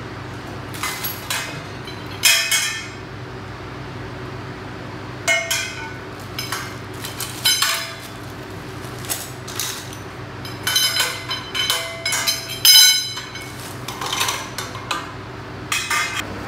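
Metal tubes of a laundry organizer frame clinking and clanking against each other as they are handled, in irregular clusters of knocks with a short metallic ring, the loudest about two seconds in and again near thirteen seconds. A steady low hum runs underneath.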